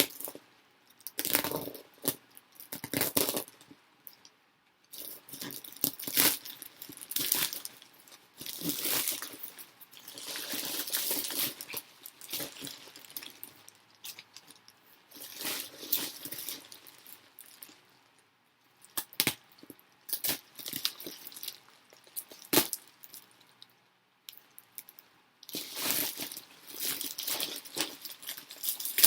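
Plastic parcel packaging being handled and opened by hand: irregular bursts of crinkling and rustling with short pauses, and a few sharp clicks.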